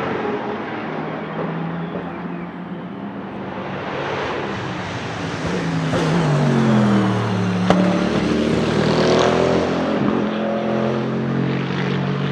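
Bentley Continental GT3 race car's 4.0-litre twin-turbo V8 going past. The engine note falls as the car slows by, with one sharp crack about two-thirds of the way in, then climbs again as it accelerates away.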